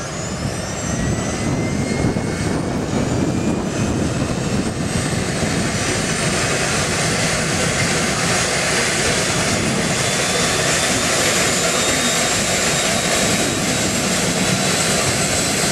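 Eurocopter EC145 helicopter running on the ground with its main rotor turning. The whine of its twin turboshaft engines rises in pitch over the first few seconds and then holds steady over a dense, even noise of rotor and engines, as it runs up for take-off.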